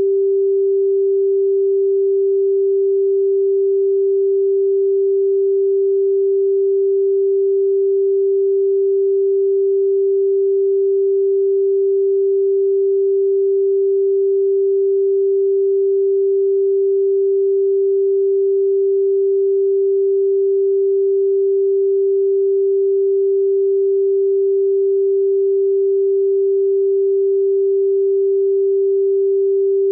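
A steady pure sine-wave test tone at 392 Hz, the note G4, held at an unchanging pitch and level.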